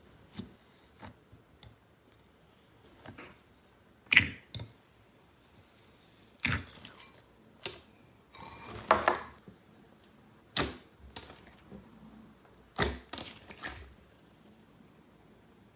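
Slime being handled by hand: a string of sharp, irregular clicking pops. A longer crackling squish comes about eight to nine seconds in.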